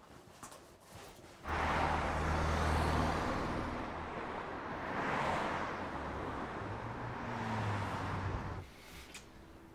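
Road traffic rushing past on a highway: a steady wash of tyre and engine noise with the low hum of heavy vehicles. It starts abruptly about a second and a half in and cuts off abruptly near the end.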